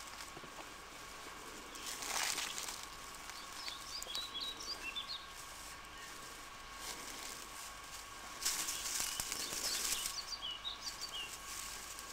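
Dry leaf litter and twigs rustling and crunching in two bursts, about two seconds in and again for a second or two past the middle, as someone pushes into the undergrowth. A few short high bird chirps come in between the bursts and near the end.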